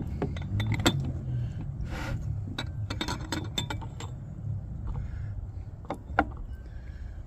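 Antique glass Pyrex percolator lifted off the heat and set down, with scattered light glassy clinks and taps, the pot still perking. A steady low hum runs underneath.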